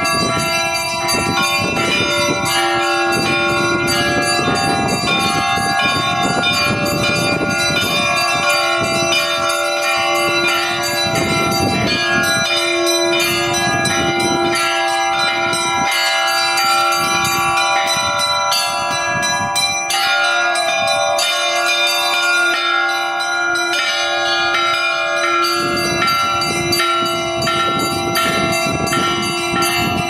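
Russian Orthodox church bells of several pitches ringing together in a continuous festive Easter peal (trezvon), heard close up in the belfry, with a deep bell tone sounding on and off under the smaller bells.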